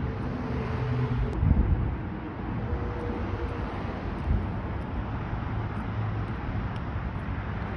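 Steady low vehicle rumble with some wind noise, and a brief louder knock or rustle about a second and a half in.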